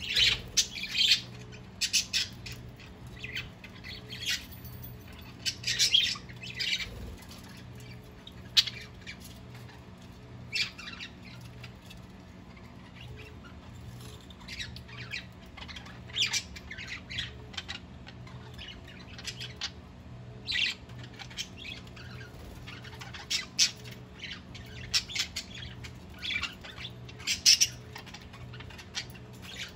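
A flock of budgerigars chattering and squawking: short, sharp calls come irregularly throughout, some louder and closer than others.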